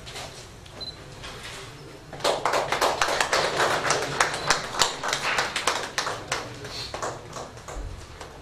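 A small group of people clapping, starting about two seconds in and thinning out near the end.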